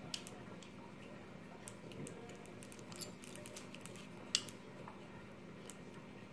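Pliers twisting a wire tight on a burlap wreath: scattered light metal clicks and ticks amid soft handling of the burlap ribbon, the sharpest click about four seconds in.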